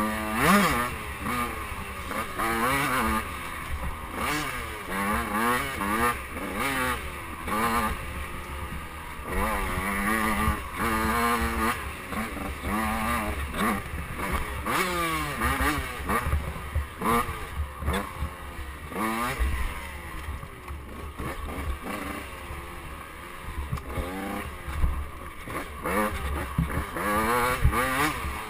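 KTM 85cc two-stroke dirt bike engine revving up and dropping back over and over as the throttle is worked and the gears change, its pitch rising and falling every second or two.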